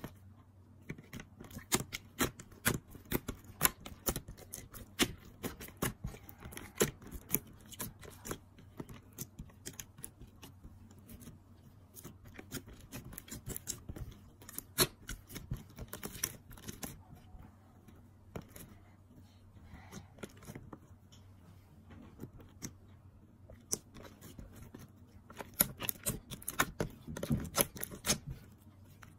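Glittery slime mixed with makeup being kneaded and squeezed by hand, making many irregular sharp wet clicks and pops, which come thicker near the end.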